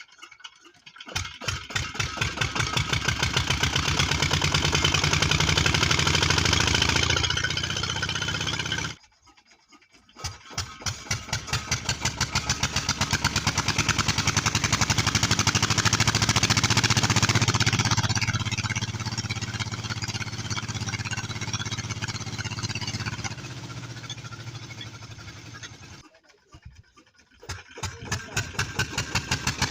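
Tubewell diesel engine starting and running up to speed, its beat quickening as it picks up. It does this three times, with abrupt silences of about a second between runs, about 9 s and 26 s in.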